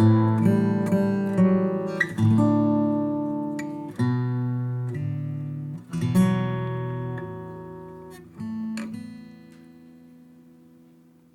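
Claro walnut and redwood OM steel-string acoustic guitar playing a slow run of chords, one about every two seconds. The last chord, about eight and a half seconds in, is left to ring and fades away.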